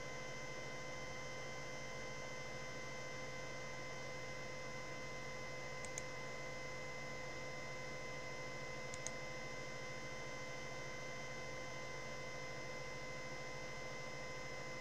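Steady electrical hum with a thin high whine, and two computer mouse clicks about three seconds apart.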